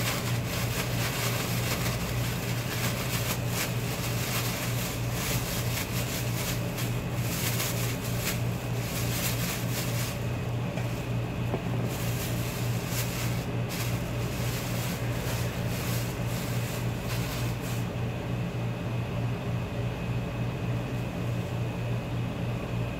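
Plastic bag crinkling and rustling as shrimp are shaken in breading mix inside it, busiest for the first ten seconds or so and then thinning out. Under it, a steady low machine hum.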